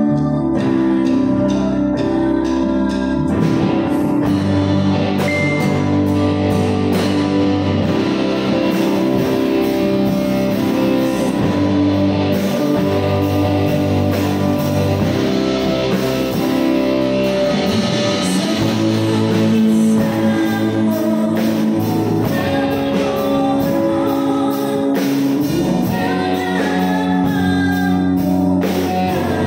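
Live band playing a worship song, with electric guitars, keyboard and drum kit backing a woman singing through a microphone and PA.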